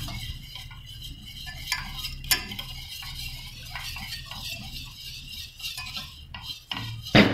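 Wire balloon whisk stirring thick béchamel sauce in a metal saucepan, its wires clicking and scraping irregularly against the pan, over a low steady hum. A louder single knock comes near the end.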